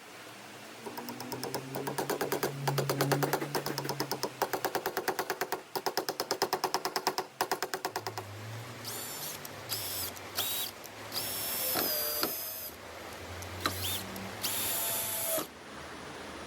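Power drill running in a long rapid pulsing stretch with a low hum, then several short trigger pulls, its whine rising as it spins up and falling as it stops.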